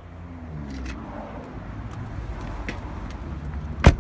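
Low rumble of wind and handling noise on the phone microphone with a few faint clicks, then a single loud thump near the end: a car door being shut.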